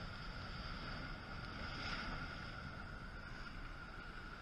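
Rough storm surf washing against a rocky shore, with one wave breaking about two seconds in, over a low rumble of wind on the microphone. A faint steady high whine runs underneath.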